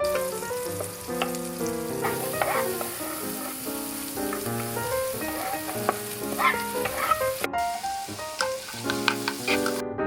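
Food sizzling as it fries in a pan, with background music playing a melody of short notes over it.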